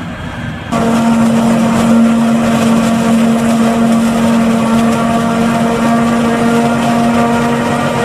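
New Holland FX 450 self-propelled forage harvester chopping maize, running under load with a loud, steady hum over a broad rushing noise. It starts abruptly under a second in, replacing a quieter tractor engine sound.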